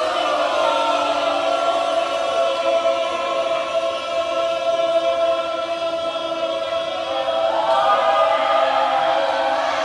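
A group of voices singing together in long, held notes.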